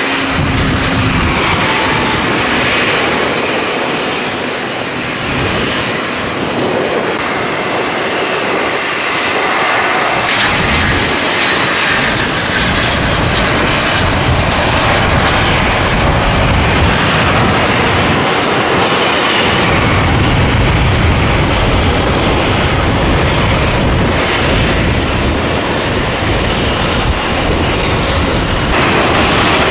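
Jet aircraft engines at an airport: first a Boeing 767 freighter taxiing. About ten seconds in, the sound changes to a small twin-engine business jet approaching and landing, a steady jet roar with a high whine that falls in pitch.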